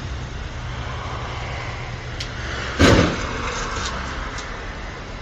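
A car's engine running with a low rumble that slowly fades, broken by one loud, sharp thump a little under three seconds in, with a few faint clicks around it.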